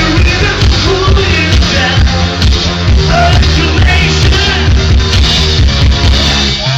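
Loud electro-rock music with a pulsing bass line and a steady driving beat.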